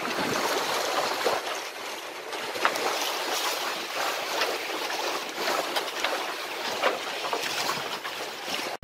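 Steady rush of water and wind around a sailing catamaran under way, with small splashes in the hiss.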